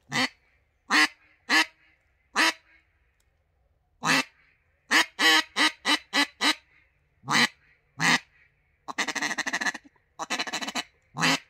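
3D-printed PETG double-reed mallard duck call with mylar reeds, blown by hand in a raspy hen-like tone. It gives spaced single quacks, a quick run of five or six quacks about five seconds in, and two rapid rolling chuckles near the end, with a last quack.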